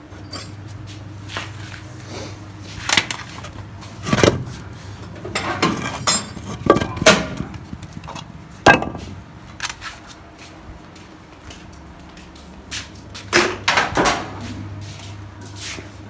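Irregular knocks and clatter of metal parts and wood being picked up and set down, a dozen or so separate hits, over a low steady hum.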